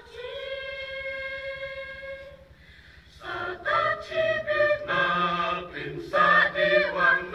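Mixed choir of men and women singing a Khasi thanksgiving song unaccompanied. A long held note fades about two and a half seconds in, and after a short lull the voices come back with a moving melody.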